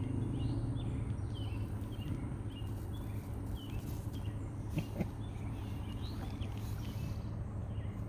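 Outdoor ambience of small birds chirping on and off, over a steady high insect drone and a low steady rumble; two light knocks about five seconds in.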